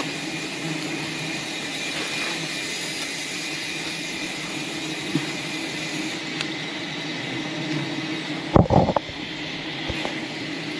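A steady droning hum over an even hiss, with a high whine that stops about six seconds in, and a sharp knock near the end.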